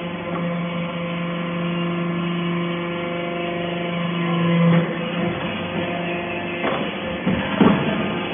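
Iron-chip briquetting press running: a steady hum from its hydraulic power unit, changing pitch about halfway through, followed by a few sharp clunks near the end as the press cycles and pushes out briquettes.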